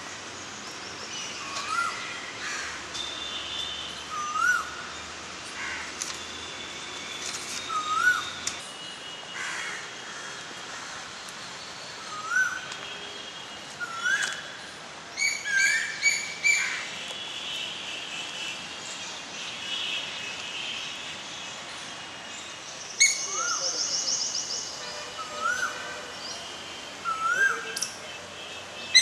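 Several birds calling in trees: a short rising whistled note repeats every two seconds or so among other chirps, with quick runs of sharp notes about halfway through and again near the end.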